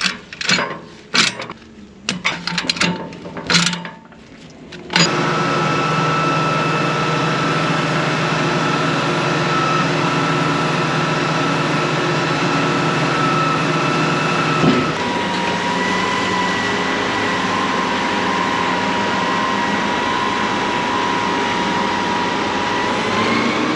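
A few sharp knocks, then about five seconds in a vehicle engine comes in suddenly and runs steadily. Its pitch shifts about two-thirds of the way through and rises slightly near the end.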